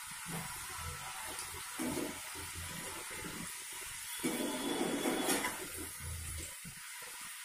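Potato French fries sizzling and bubbling in hot oil during their second fry, stirred and lifted with a perforated metal skimmer. The sizzle swells a little about four seconds in.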